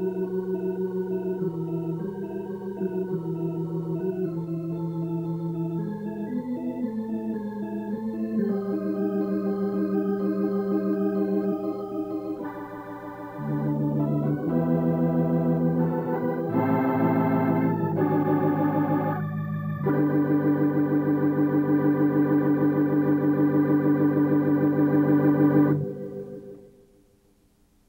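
Organ music playing sustained chords that change every second or so, ending on a long held final chord that fades out about two seconds before the end.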